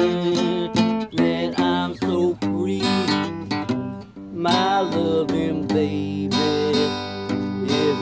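Acoustic guitar strummed in a steady rhythm: an instrumental break in a song.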